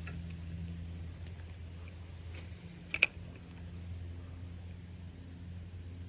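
Insects trilling in a steady, high continuous drone, with a single sharp click about three seconds in.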